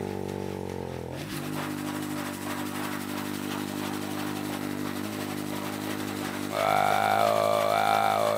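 A man's low vocal drone held on one steady pitch. About six and a half seconds in it turns louder and brighter, its upper tones wavering up and down.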